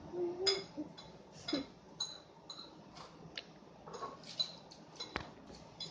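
Gum chewing close to the microphone: a scattered run of small wet clicks and short squeaky smacks. A brief hum comes near the start and a sharper click about five seconds in.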